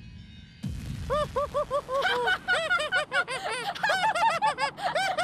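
High-pitched cartoon children's voices laughing in quick, repeated "ha-ha" syllables, starting about a second in and thickening into an overlapping, jeering chorus; a low rumble cuts off just before.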